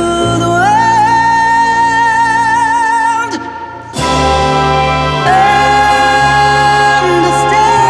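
Slow, tender song music: long held notes with vibrato over sustained chords. The music thins out briefly just past the halfway point, then comes back with a new chord.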